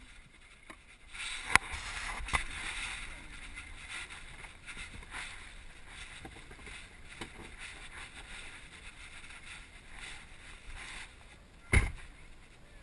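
Knocks and rustling inside a parked car: two sharp knocks in the first few seconds with rustling after them, then quieter, and one loud thump near the end.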